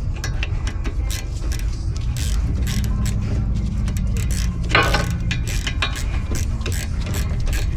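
Hand ratchet wrench clicking rapidly as it tightens a rear brake caliper bolt, over a steady low hum.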